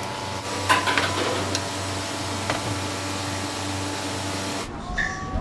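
Food sizzling in a wok over a gas burner, with a metal ladle clanking against the wok a few times over a steady hum; the sizzle cuts off suddenly near the end.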